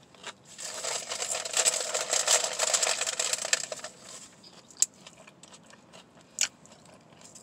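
Chips being chewed and crunched in the mouth: a dense crackly crunching for about three seconds, then only a few faint clicks.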